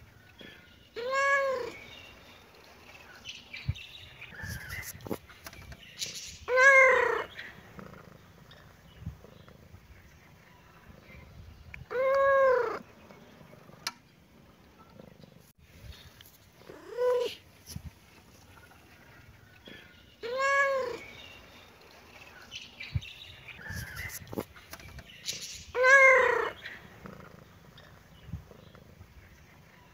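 Domestic cat meowing six times, a few seconds apart; each meow rises and then falls in pitch.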